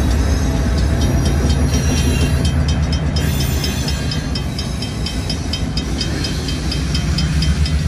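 Train rolling past at close range: a steady heavy rumble, with a regular light clicking of about three a second from about two and a half seconds in.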